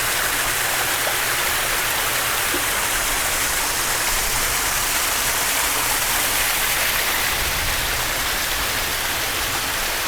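Heavy rainwater cascading down a flight of stairs like a small waterfall, in a downpour: a steady, even rush of water.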